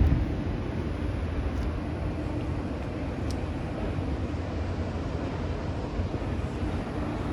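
Steady low rumble of jet aircraft and airport apron noise, with a faint steady hum in it.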